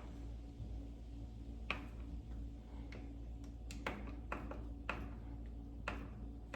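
A few scattered light clicks and taps from a screwdriver and sliding-door handle hardware as the new handle trim is fastened, over a steady low hum.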